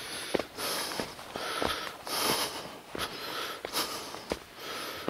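A hiker breathing hard from the climb, close to the microphone, about one breath a second, with a few light footsteps on the leaf-littered trail.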